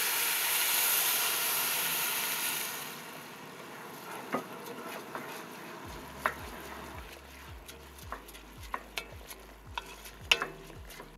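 White wine hitting hot toasted Arborio rice in an enamelled cast-iron pot as it is deglazed, sizzling loudly and dying down after about three seconds. A softer sizzle follows, with the clicks and scrapes of a wooden spoon stirring the rice.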